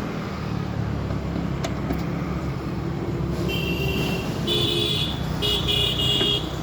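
A vehicle engine running steadily, with a horn honking three short times in the second half.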